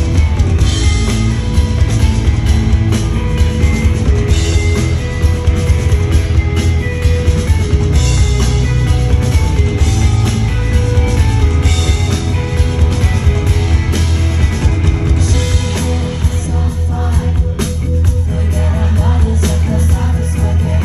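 Live indie rock band playing: electric guitars, bass guitar and drum kit, loud and continuous, with a heavy, boomy low end.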